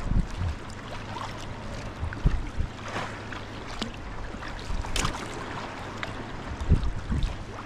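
Greenland paddle strokes on a sea kayak: the carbon blade dipping and splashing into the sea every couple of seconds, the sharpest splashes about three and five seconds in, over a steady wash of water along the hull. Several low bumps come and go.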